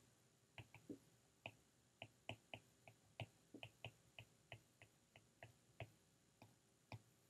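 Faint, irregular clicks of a stylus tapping on a tablet screen while words are handwritten, about twenty short taps.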